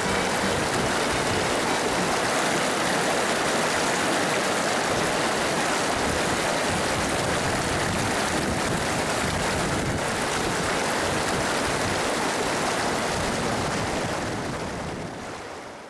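Steady rushing of stream water, fading out near the end.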